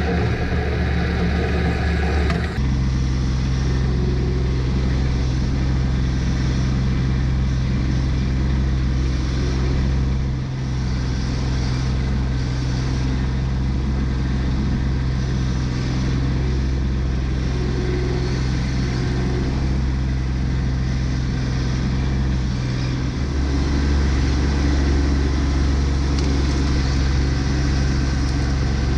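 Kubota B2601 compact tractor's three-cylinder diesel engine running steadily. About 23 seconds in, its low drone grows louder as the engine works harder.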